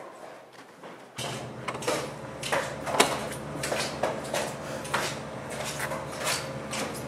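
Footsteps on a hard floor, about two a second, over a steady low hum that starts about a second in.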